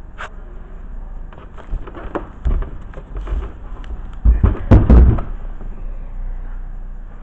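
Handling noise from a used brake caliper and the camera being moved about close to the microphone: irregular knocks and dull thuds, the loudest clustered about four to five seconds in, over a low rumble.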